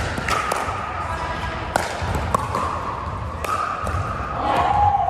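Pickleball rally: a series of sharp, hollow pocks as paddles strike the plastic ball, a second or so apart, in a large echoing hall.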